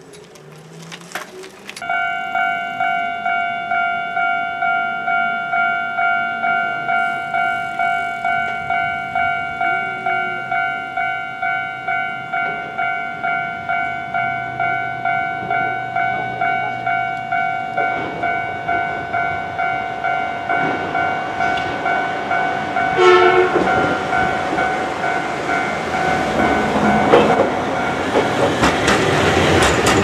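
Japanese level-crossing warning bell ringing in a steady, even ding-ding, about two strokes a second. A red Hankai tram (car 502) comes closer, its running noise growing, gives a short horn blast, and crosses with wheel clatter on the rails near the end.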